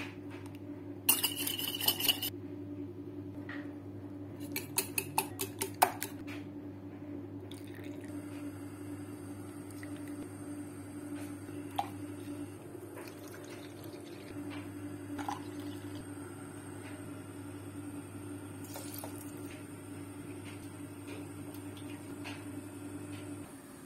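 A wire whisk clinking and clattering against a bowl as eggs and milk are beaten, with a quick run of sharp taps about five seconds in and scattered light clinks after that. A steady low hum runs underneath and stops just before the end.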